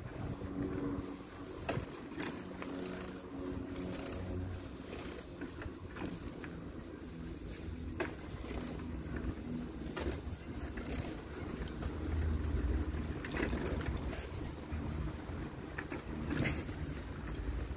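Steady low outdoor rumble with irregular soft knocks and taps from walking with a handheld camera.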